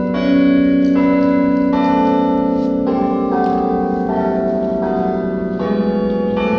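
Church bells of several different pitches struck one after another, roughly one to two strikes a second, each one ringing on under the next so the tones overlap.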